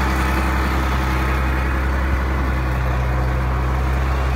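Caterpillar 814 wheel dozer's diesel engine running steadily as the machine drives slowly over sand.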